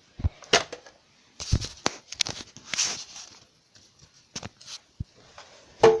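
Handling noise from hard plastic fire alarm devices being picked up and set down: irregular clicks and knocks with a stretch of rustling in the middle and a sharper knock near the end.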